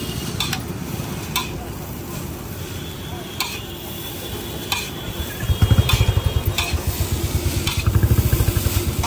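Chow mein noodles sizzling and being tossed on a large flat griddle, with sharp clicks every second or so. About five seconds in, a loud, low, pulsing engine throb joins.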